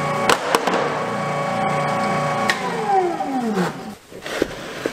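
Large cast-iron electric meat grinder running with a steady motor hum and a couple of knocks near the start. It is switched off with a click about two and a half seconds in, and its pitch falls as the motor winds down to a stop.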